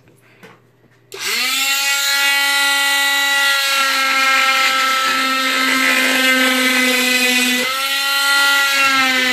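Oscillating cast saw starting up about a second in and running with a loud, steady whine as it cuts along a leg cast, its pitch dipping briefly near the end.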